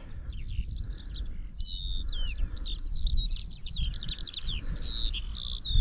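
A small songbird singing a long, unbroken run of quick, high chirping and warbling notes that slide up and down, over a low steady wind rumble on the microphone.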